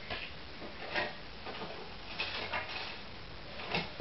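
Scattered light knocks and clatter of objects being handled and moved while someone looks for something, a few short knocks about a second apart.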